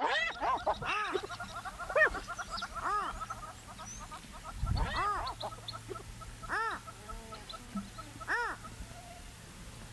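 Birds calling in the bush: a series of loud calls, each rising and then falling in pitch, coming about once a second at first and then more spaced out, over a fainter fast, even chirping. There is a dull low thud about halfway through.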